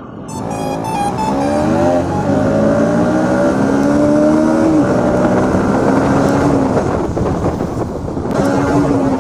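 Bajaj Pulsar single-cylinder motorcycle engine accelerating hard: its pitch climbs over the first couple of seconds and holds high, steps down about five seconds in, falls away near seven seconds, and comes back up near the end.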